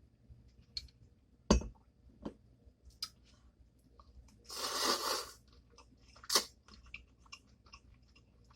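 Close-up mouth sounds of a person eating: chewing with crisp crunches and wet clicks, a sharp one about one and a half seconds in and another past six seconds, and a half-second rush of noise near the middle.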